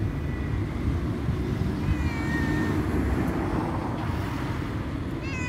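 Frightened ragdoll cat meowing outdoors. A cry trails off just after the start, then one long meow about two seconds in drops in pitch and holds, and another begins near the end. A steady road-traffic rumble runs underneath.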